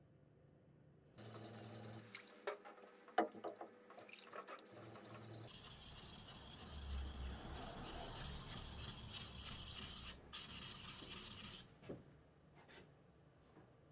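Sashimi knife (yanagiba) blade being worked by hand across a wet 400-grit whetstone: a steady gritty scraping from about five seconds in that stops shortly before the end, with a short break in the middle. Before it come a few sharp clicks and scrapes as the blade is set on the stone.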